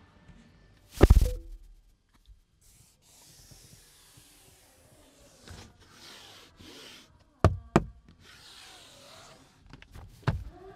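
Knocks and rubbing on a car's interior door trim: one sharp knock about a second in, two quick knocks past the middle and another near the end, with soft scraping as a hand and a small hard object slide over the textured trim panel.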